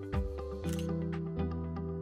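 Instrumental music with a steady ticking beat over sustained bass notes that change every second or so.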